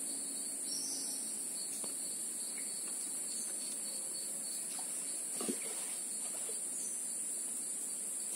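A steady, high-pitched chorus of insects chirring without a break. A faint small knock or rustle comes about five and a half seconds in.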